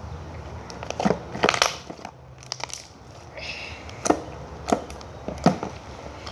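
Homemade glitter slime being squished and stretched by hand, giving a series of about six sharp, short pops.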